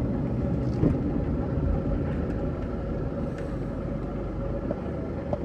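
Steady low road and engine rumble of a car being driven, heard from inside the cabin, with a faint steady hum.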